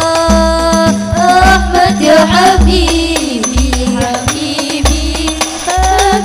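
Hadrah banjari group performing sholawat through a PA system: young women sing a melody in unison into microphones over frame drums (rebana/terbang). The drums beat a quick rhythm, with a deep bass stroke about once a second.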